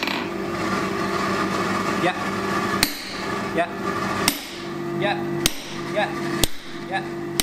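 Hand hammer striking red-hot steel bar on an anvil: a few sharp blows about a second apart, mostly in the second half, over a steady hum.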